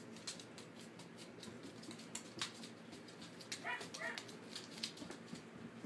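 Eight-week-old Australian Shepherd/Great Pyrenees mix puppies at play, with scattered light clicks and scuffles throughout and two short, faint puppy cries a little past halfway.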